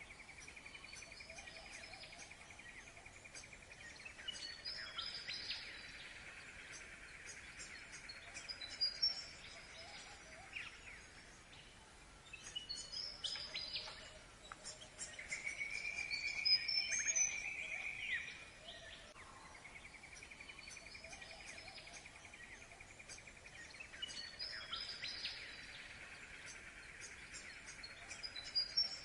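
Wild birds calling with short, high chirps, scattered throughout. Underneath runs a continuous, rapidly pulsing buzz that comes in spells of several seconds: the first runs to about 6 s, a louder one falls between about 15 and 18 s, and another starts at about 20 s and lasts to near the end.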